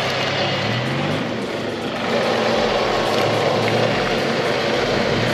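Four-wheel-drive vehicle's engine running, its revs climbing briefly about a second in and again a few seconds later.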